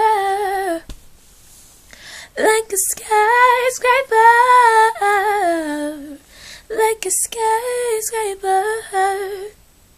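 A young female voice singing without accompaniment: wavering, drawn-out notes and runs without clear words, in three phrases. The middle phrase slides down in pitch at its end, and the singing stops about half a second before the end.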